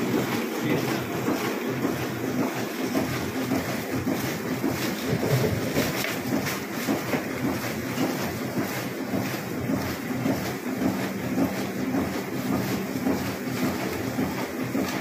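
Foil-embossing label printing press running: a steady, fast mechanical clatter of the press stroking, over a steady motor hum.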